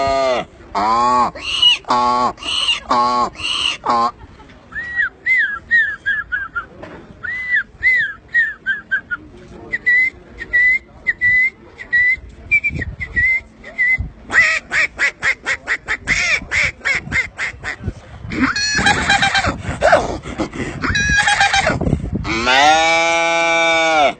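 A man imitating animal calls with his voice, one after another: short pitched calls in the first few seconds, then a run of high chirping whistles, a fast string of clicks, rougher noisy calls, and a long low call near the end.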